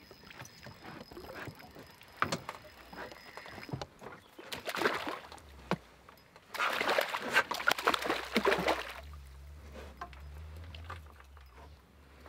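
Water splashing and sloshing around a small boat, in two bursts, the second longer, with scattered light knocks in between.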